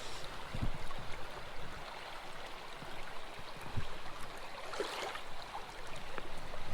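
Small creek's running water, a steady rushing hiss, with a few low bumps and a brief splash about five seconds in.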